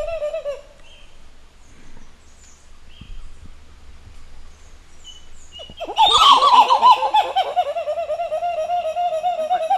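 Gobbling calls of the Beni titi monkey (Callicebus modestus). The tail of one call fades out in the first second; about six seconds in, another call begins as a fast series of pulsed notes falling in pitch, then settling into an even, steady trill.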